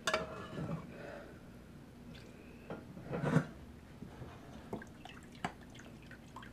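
A plastic spoon scraping and clattering in a large pot as the last of the chicken bone broth and bones is scooped out, with a knock a little after three seconds in. Then broth drips through a strainer into a metal bowl in a few small drips.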